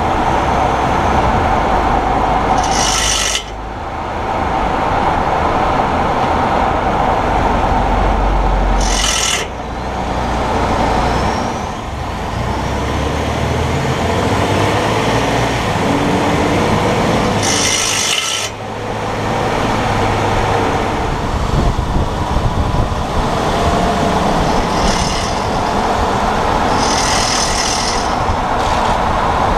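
Grinding and rubbing noise from a 2018 Ford F-150's front wheel end while driving, heard close up over steady road noise, with a few short hissy bursts. The owner suspects the integrated wheel ends (IWE) that engage 4WD.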